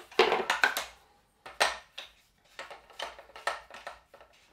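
Hard polymer and steel parts of a gun-cleaning vise clacking and knocking together as they are handled and fitted. There is a quick run of clacks in the first second, then single knocks about every half second.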